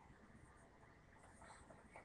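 Near silence, with a few faint plastic scrapes and ticks over about half a second around the middle, as a mock silencer is twisted onto the muzzle of an airsoft rifle.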